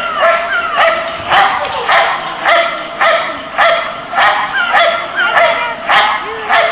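German shepherd puppy barking over and over in short yaps, about two a second.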